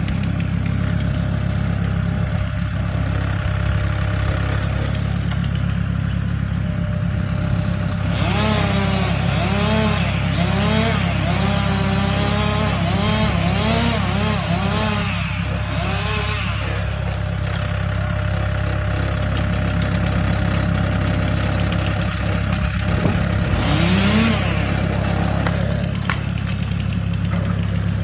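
A compact track loader's engine runs steadily throughout. Over it, a chainsaw revs up and down over and over for about nine seconds in the middle, rising once more near the end, as the trunk is cut.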